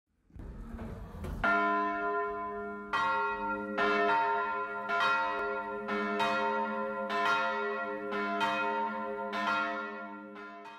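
Church bells in a wooden bell tower ringing, struck about once a second at uneven intervals, each strike ringing on and overlapping the next. A low rumble comes before the first strike, and the ringing dies away near the end.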